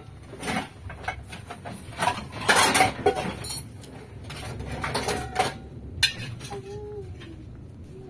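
Kitchenware being handled: pots, dishes and containers clattering and clinking in a string of knocks, loudest in a burst about two and a half seconds in, with a single sharp knock about six seconds in.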